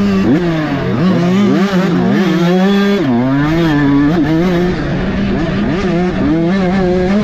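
Off-road racing motorcycle engine revving hard and easing off again and again as the rider works the throttle, its pitch climbing and dropping every second or so.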